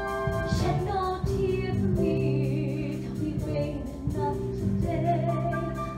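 A young woman singing a slow solo musical-theatre ballad live over held orchestral chords. Her voice comes in about half a second in, in phrases with held notes.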